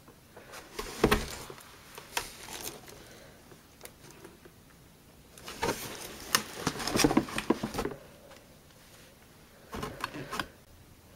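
Irregular clicks, knocks and rustles as a Bodum blender jug is handled and lifted out of its cardboard box, with a busier run of handling noise in the middle and another short burst near the end.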